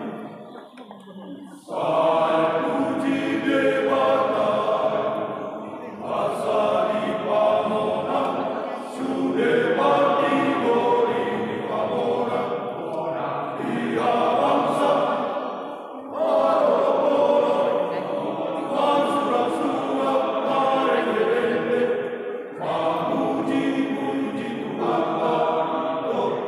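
Men's church choir singing a hymn in several voices, phrase after phrase, with a quiet breath pause in the first couple of seconds and short breaks between phrases.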